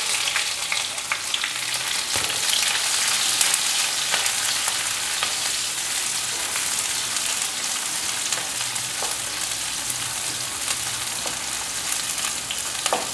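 Chopped red onions frying in hot oil in a non-stick kadai: a steady sizzle, with a wooden spatula stirring and now and then scraping or tapping the pan.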